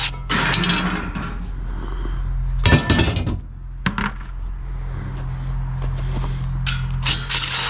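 Metal pieces of a scrap steel table clanking and rattling as they are handled, the loudest cluster about three seconds in and more knocks near the end, over a steady low hum.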